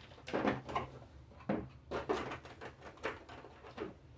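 Irregular light knocks and rattles, about six in four seconds, as Lego Technic parts are picked up and a white cardboard set box is moved on the table.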